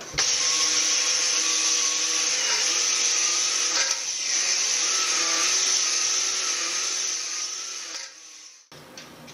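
Cordless drill spinning a cylinder hone inside a cast-iron cylinder bore of a Bedford RL engine block, deglazing the liner. A steady grinding whirr with a wavering motor whine, dipping briefly about four seconds in and stopping shortly before the end.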